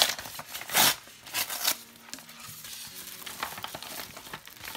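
Paper and bubble-wrap mailer packaging crinkling as it is pulled open by hand. There are several sharp rustles in the first two seconds, the loudest just under a second in, then softer rustling.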